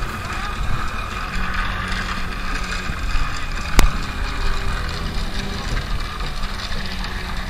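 Wind rumbling on a handheld camera's built-in microphone, with a steady hiss. One sharp click a little under four seconds in.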